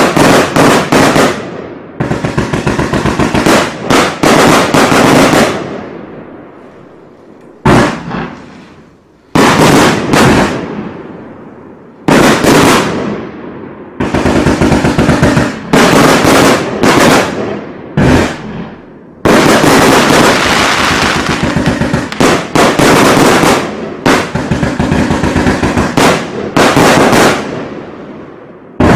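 Gemstone Fireworks 'Euphoria' consumer firework going off: volleys of rapid, loud pops and bangs, each volley dying away into a brief lull before the next one starts.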